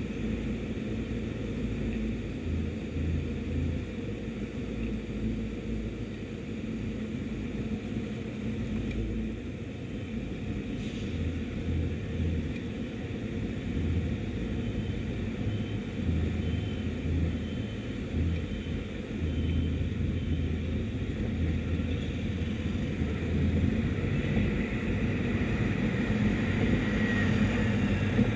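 Low rumble of wind and road noise from a moving Audi Q7 SUV, picked up by a camera mounted on the outside of the body beside a wheel, with the tyre rolling over the pavement. It grows louder in the last few seconds as the car gathers speed.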